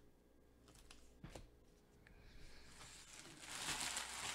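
Card-pack wrapper crinkling, building from about two seconds in and loudest near the end, after one sharp click a little over a second in.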